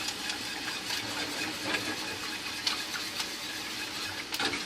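Homemade barbecue sauce simmering in a pot with a steady sizzling hiss, and a whisk ticking against the pot a few times.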